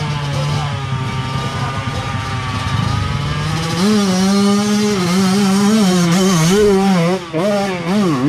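Trail dirt bike engine under load on a steep hill climb. It runs steadily at first, then is revved harder about four seconds in, its pitch wavering up and down with quick throttle blips and two brief dips near the end.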